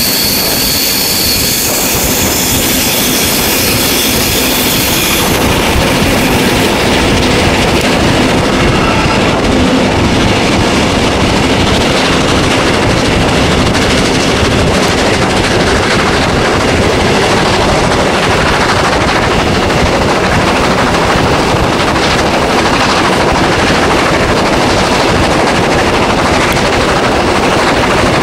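DR class 41 steam locomotive 41 1144 working hard up a steep gradient, its exhaust beats coming in fast succession over the rumble of wheels on rail, heard from a carriage window just behind the engine. High steady tones sound over it for the first five seconds, then stop.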